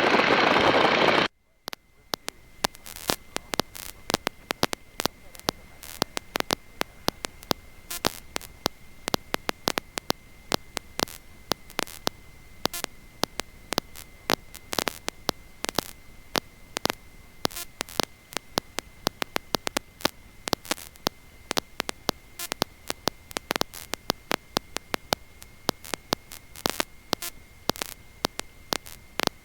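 Loud biplane engine and wind noise cuts off abruptly about a second in. It is replaced by crackling electrical static: irregular sharp clicks over a faint, steady high whine.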